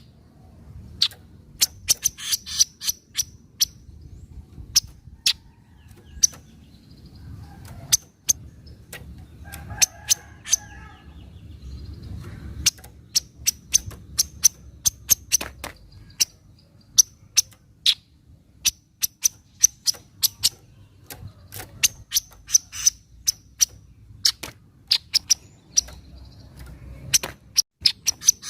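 Kaso-kaso (tepus glagah) bird giving sharp, very short chattering 'cret' calls, singly and in quick runs of several notes, over a steady low hum. It is a lure recording meant to provoke a quiet kaso-kaso into calling.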